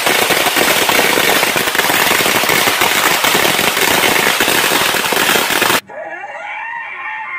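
Firecrackers on the ground going off in a dense, rapid crackle of pops. It cuts off suddenly near the end, and a man's loud yelling voice follows.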